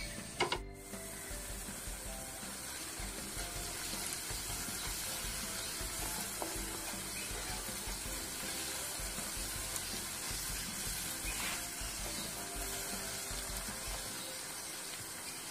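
Sliced onions, green chillies and curry leaves frying in oil in an aluminium pot, sizzling steadily as they are stirred with a spatula while being sautéed until soft. A single sharp knock about half a second in.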